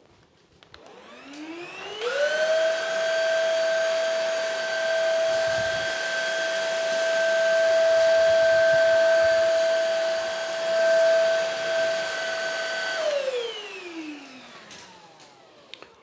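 PrettyCare W100 cordless stick vacuum running in normal mode. Its motor winds up with a rising whine about a second in, then holds a steady high whine for about ten seconds. Near the end it winds down as it is switched off.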